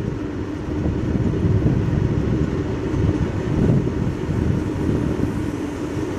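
Loaded open-top freight wagons rolling past at speed: a steady, loud rumble of steel wheels on the rails with irregular knocks and rattles from the wagons.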